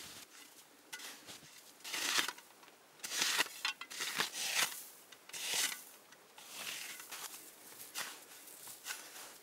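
Snow shovel scraping and scooping snow in a series of short strokes, about six or seven, the loudest in the middle.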